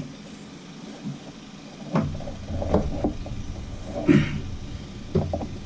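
Scattered knocks and clanks of pliers and a threaded pipe elbow being wrenched on a seacock valve, the loudest clank about four seconds in, with a low rumble starting about two seconds in.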